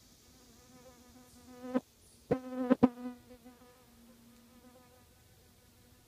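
A flying insect buzzing close to the microphone: a steady hum that grows louder toward the middle and fades away again, with three or four sharp taps around its loudest point.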